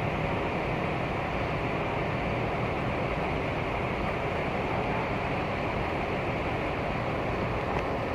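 Parked double-decker coach idling, a steady low rumble with hiss and no change in pace.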